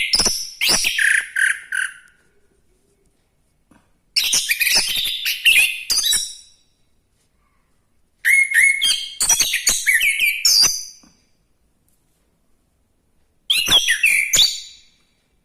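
Orange-headed thrush singing: four bouts of rich, varied high song, each a couple of seconds long, with pauses of about two seconds between them.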